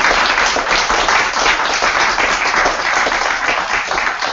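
Audience applauding: dense, steady clapping that begins to thin out right at the end.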